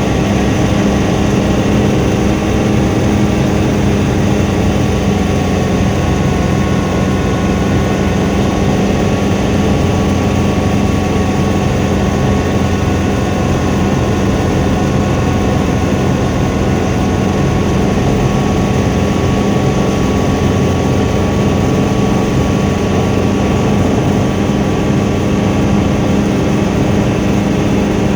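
Helicopter engine and rotor noise, a loud steady drone with a constant hum and a faint whine held at one pitch.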